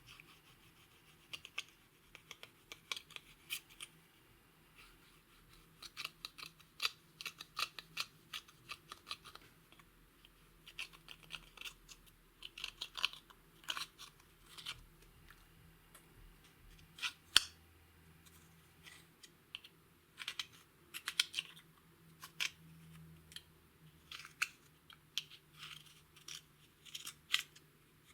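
Slime being mixed and worked by hand, giving irregular sticky clicks and crackling pops in quick clusters, with a few louder single pops.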